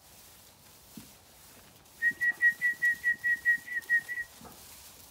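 A shepherd's whistle call to sheep: a quick run of about a dozen short, high, slightly sliding notes, about five a second, starting about two seconds in.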